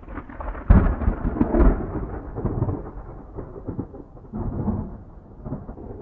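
Thunder: a sudden loud crack about a second in, rolling into long rumbles, with a second swell of rumbling past the middle.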